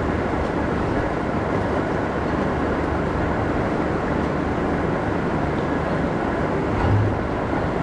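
Steady machinery noise: a constant low hum with a broad hiss over it, swelling briefly about seven seconds in.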